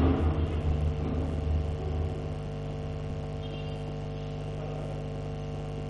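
Steady electrical hum with a stack of even overtones. A stronger low hum fades out about two seconds in.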